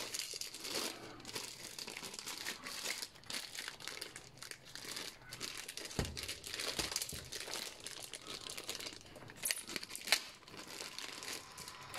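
Clear plastic bag crinkling and rustling in irregular crackles as hands unwrap a drone's radio controller from it, with a light knock about halfway through.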